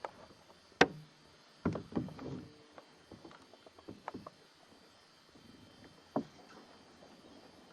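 Canoe paddling: a sharp knock of the paddle against the canoe about a second in, with a short ring after it, then a quick cluster of knocks and splashes and a few lighter taps.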